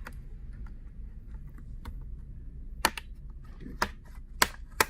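Four sharp plastic clicks in the second half, as the last clips holding a laptop's display panel snap free under a flat pry tool.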